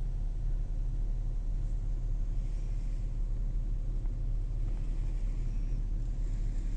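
Steady low rumble inside the cabin of a 2023 Acura MDX, with a faint, short squeak from the driver's seat about two and a half seconds in and again about five seconds in, as the leg moves on the seat. The squeak is a new fault in a car with under 500 miles.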